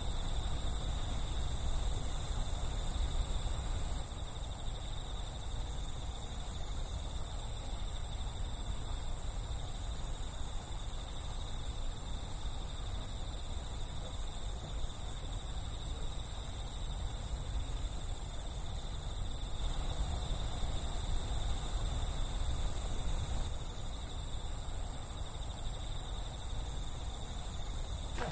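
Insects trilling at night, a continuous steady high-pitched chirring, over a steady low rumble.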